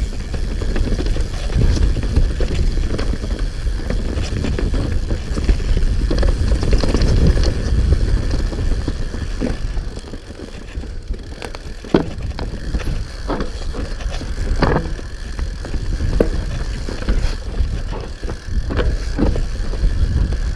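Hope HB160 mountain bike riding down a dirt forest trail: a steady low rumble of wind and tyres on the dirt, with sharp knocks and rattles from the bike over roots and bumps, coming thick and fast in the second half.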